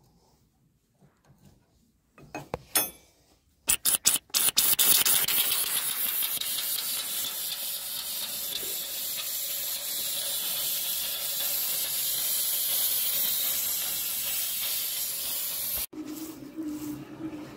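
Pressurised gas hissing out of a Cat 559B log loader's hydraulic delimber accumulator once its vent valve is opened, after a few clicks of the wrench on the fitting. The hiss is steady and loud and drops off suddenly near the end. It is the charge that is supposed to stay in the bladder being pushed back toward the hydraulic tank: the accumulator bladder is busted.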